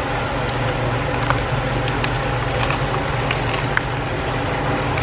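Steady low hum and noise, with a few light clicks and small scrapes from a prying tool working under an iPad's glued-in battery.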